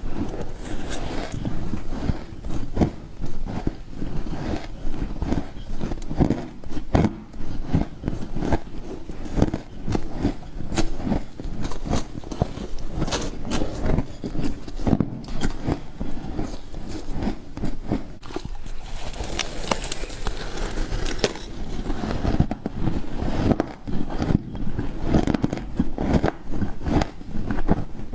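Close-up crunching and chewing of freezer frost: dense, irregular crackling crunches, several every second.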